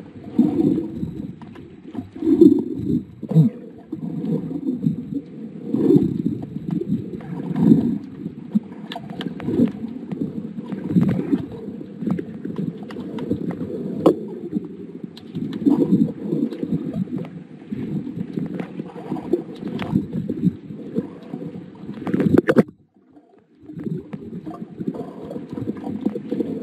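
Muffled water noise heard underwater, swelling and fading roughly every two seconds with scattered sharp clicks. It cuts out briefly about 23 seconds in.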